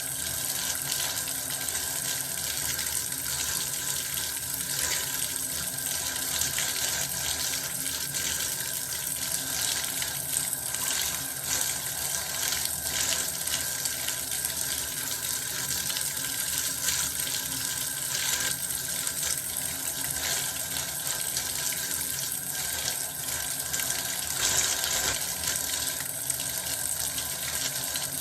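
Bath water running from a tap in a steady, unbroken rush.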